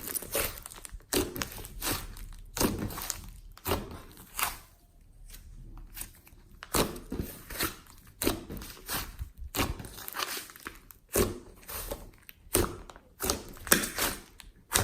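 Hands kneading and squishing slime, giving a run of irregular sticky crackling squishes about once or twice a second, with a short lull about five seconds in.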